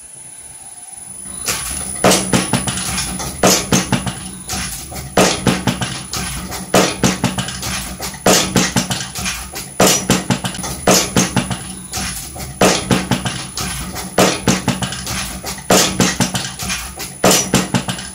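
Background music with a steady percussive beat, coming in about a second and a half in.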